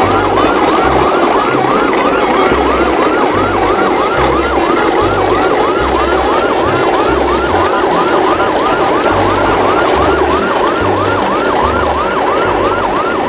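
Electronic siren wailing in quick rise-and-fall cycles, about three a second, with deep pulses underneath at an uneven pace.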